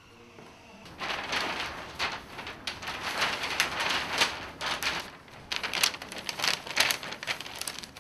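A stack of paper documents being gathered and leafed through, a dry rustling with many small crackles. It is followed near the end by a run of sharper, irregular taps.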